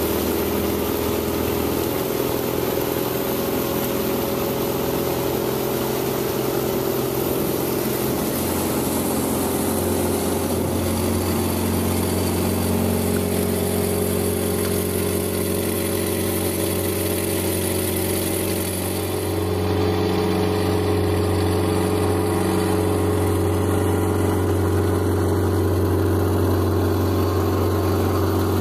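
Boat's outboard motor running steadily as the boat cruises along, a little louder from about two-thirds of the way through.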